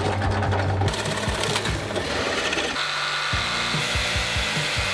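Benchtop drill press boring a hole in plywood with a Forstner bit. Partway through it gives way to a jigsaw cutting the plywood, a steadier, higher-pitched buzz.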